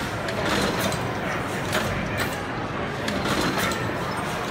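1903 Burnley Ironworks horizontal mill steam engine running on steam: a steady hiss with repeated clicks and knocks from its moving rods and valve gear.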